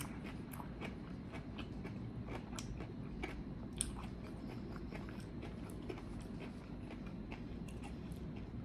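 Close-miked chewing of a mouthful of crunchy tostada and shrimp ceviche: a steady run of small wet crunches and mouth clicks, with one slightly sharper crunch about four seconds in.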